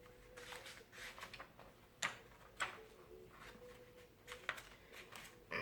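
Quiet room with a faint steady hum and a few short, sharp clicks, two of them clearer, about two and two and a half seconds in.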